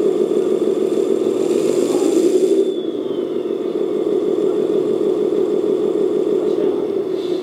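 JDM-168 RC Jeep crawler's electric motor and four-speed gearbox whirring steadily as the wheels are driven in reverse in speed 1, its lowest gear, with a brief rise and fall in pitch about two seconds in.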